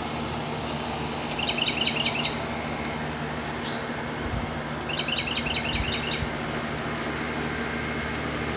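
A songbird singing twice, each time a quick run of six or seven repeated whistled notes, the two runs about four seconds apart.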